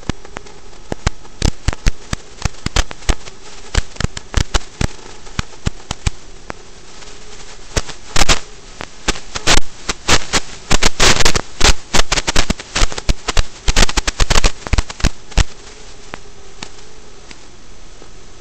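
Crackling, popping static over a steady hiss from an analog FPV video link's audio channel, with irregular sharp clicks that come thickest in the middle stretch and a faint steady hum underneath; the crackle comes from breakups in the radio signal as the micro drone flies through the house.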